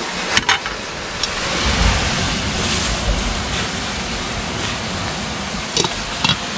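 Steady rushing of wind and surf, with low rumbles swelling a couple of seconds in and a few sharp clicks about half a second in and near the end.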